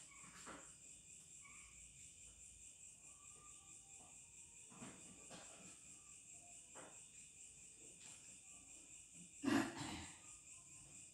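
Steady high-pitched chirping of crickets, with a few faint ticks and one brief louder noise about nine and a half seconds in.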